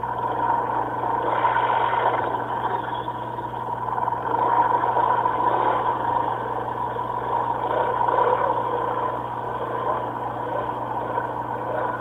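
A 150cc go-kart engine running continuously, its level swelling and easing a few times.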